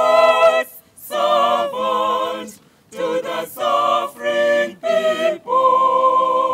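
Unaccompanied choir singing a slow piece in short phrases separated by brief pauses, settling into a long held note about two-thirds of the way through.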